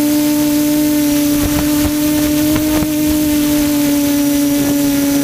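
QAV400 quadcopter's electric motors and propellers droning steadily at an almost constant pitch, with a few light ticks in the middle.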